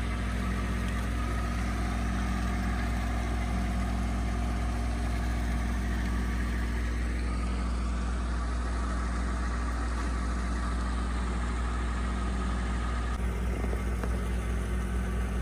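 A boat's engine idling, a steady low hum that does not change in speed.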